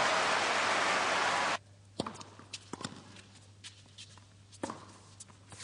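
Crowd applauding and cheering, cut off abruptly about a second and a half in. Then a quiet arena with a tennis ball being bounced on the Rebound Ace hard court, a sharp bounce every half second or so, as the server gets ready to serve.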